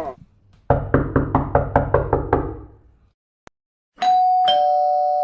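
A rapid run of about eight knocks on a door, then a single click, then a two-note doorbell chime (ding-dong) whose tones ring on and slowly fade.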